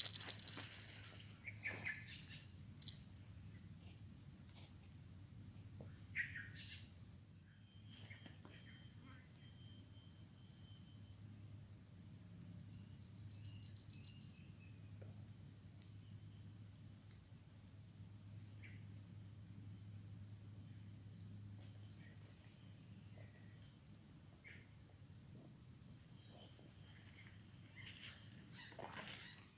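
Crickets and other insects trilling: a steady high shrill drone, with a second, lower trill that starts and stops every second or two. There are a few faint scattered chirps and one sharp tick about three seconds in.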